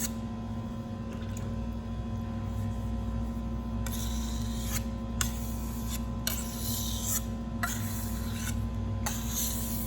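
A chef's knife drawn across the wet 1000-grit side of a whetstone, giving four scraping strokes of about a second each from about four seconds in. A steady electrical hum runs underneath.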